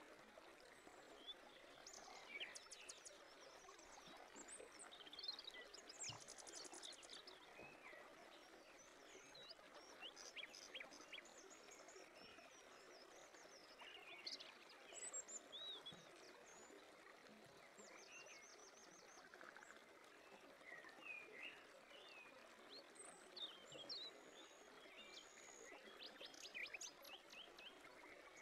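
Faint birdsong: scattered short chirps and several quick trills from small birds over a soft, steady outdoor hiss.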